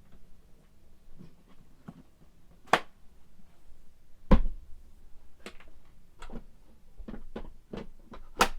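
Scattered sharp clicks and knocks of things being handled, with a heavier thud a little past four seconds in and another loud click near the end.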